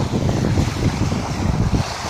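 Strong wind buffeting the microphone in an uneven low rumble, over the steady wash of waves.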